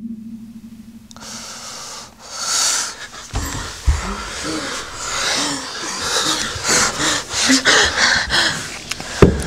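A woman gasping and wheezing for air. After a low hum and one breath early on, harsh, strained breaths follow in quick succession from about three seconds in, many with a short voiced catch.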